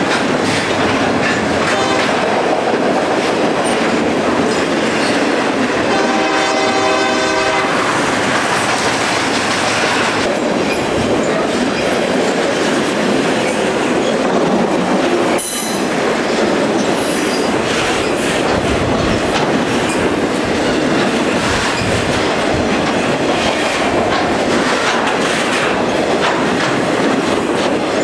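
Santa Fe intermodal freight train passing close at speed, its wheels clattering over the rail joints behind a GE B40-8 diesel locomotive. A train horn sounds for about a second and a half, about six seconds in, and a single sharp clank comes about halfway through.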